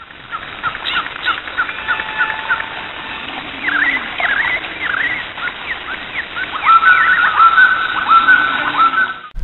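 Several songbirds chirping over a steady outdoor hiss, with quick short chirps at first, then about two-thirds in a louder bird repeating a call that leaps up and holds a clear note. The sound is dull, with its high end cut off.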